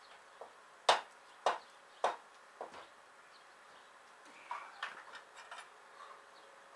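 Hand-operated arbor press forcing a gear onto a steel roller for a press fit: a string of sharp knocks and clicks. The three loudest come about half a second apart about a second in, followed by lighter clicks.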